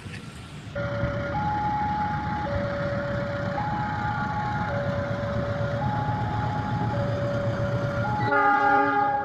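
A two-tone warning alarm alternating high and low about once a second over the low rumble of a passing diesel train, then a loud locomotive horn blast of about a second near the end.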